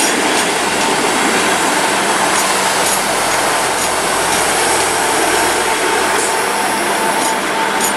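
South Western Railway Class 158 diesel multiple unit running past along the platform, its diesel engines and wheels on the rails making a loud, steady noise with a faint steady whine.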